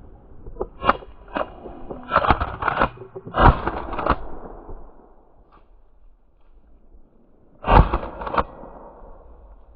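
Shotgun shots during a rabbit hunt: a string of sharp reports through the first four seconds, the loudest about three and a half seconds in, then another loud shot near eight seconds followed by a smaller one.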